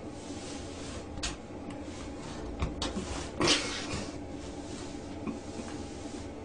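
A woven rag rug dragged across a tile floor and bumping the bottom of a wooden door as a cat's paw pulls it through the gap underneath: a few scrapes and knocks, the loudest about three and a half seconds in, over a steady low hum.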